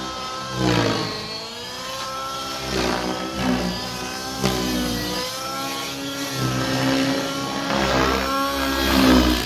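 Radio-controlled nitro helicopter flying aerobatics, its engine and rotor whine swooping up and down in pitch as it is flown hard through manoeuvres. It swells louder about a second in and again near the end.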